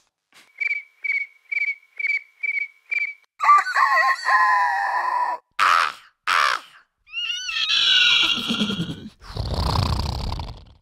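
Mouth-made sound effects in quick succession: six short, evenly spaced chirps at one steady pitch, then a wavering animal-like call and two short noisy bursts, then rising calls, ending in a low, noisy, roar-like rumble.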